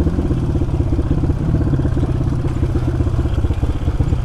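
Dirt bike engine running at low revs as the bike is ridden slowly, its pitch wavering slightly with small throttle changes.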